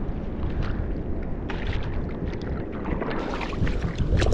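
Wind buffeting the microphone with a steady low rumble, over water splashing and sloshing around feet wading through shallow reef water; the splashes come thicker from about three seconds in.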